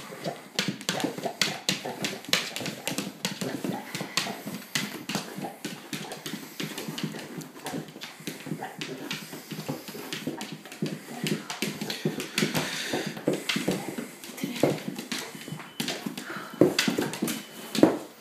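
English Springer Spaniel in a severe epileptic seizure: claws and paws clattering fast and irregularly on a wooden floor as its legs paddle.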